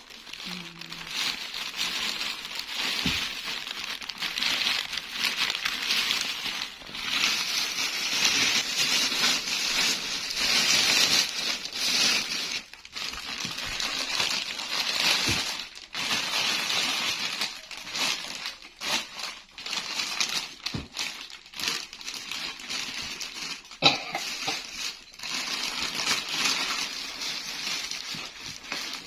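Toy packaging being crumpled and torn open by hand, an irregular crinkling and rustling that goes on and off, with one sharp knock near the end.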